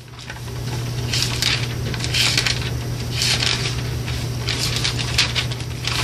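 Thin Bible pages being leafed through, a run of short papery rustles and flips about once a second, over a steady low hum.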